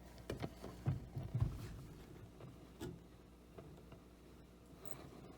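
Faint steady hum from a 1956 NordMende Fidelio tube radio, with a few soft knocks and clicks in the first three seconds.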